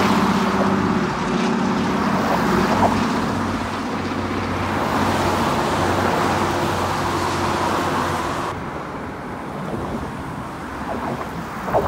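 Steady rush of road traffic passing on the bridge deck, mixed with the drone of a single-engine floatplane flying overhead, which fades after the first second or so. About three-quarters of the way through, the hiss of the traffic suddenly turns duller.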